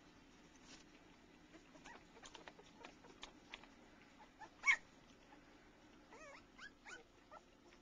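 A litter of three-week-old puppies whimpering in short, high-pitched cries, with one much louder cry a little past halfway and a run of wavering cries near the end.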